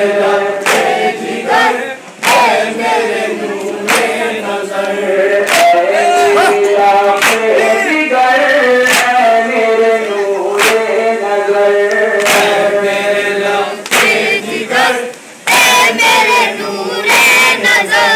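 A crowd of men chanting a farewell noha (Muharram lament) together, with sharp chest-beating slaps (matam) in time with it, about one every second and a half. The chant drops out briefly twice.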